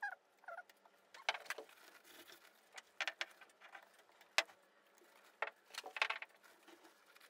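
Faint, scattered clicks and short rustles of gloved hands handling an aerosol can of penetrating oil and a paper towel around a bronze seacock.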